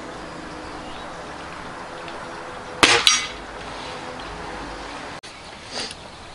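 Spring-piston air rifle firing one shot about three seconds in: a sharp report, followed a quarter second later by a second, weaker crack. A much fainter click comes near the end.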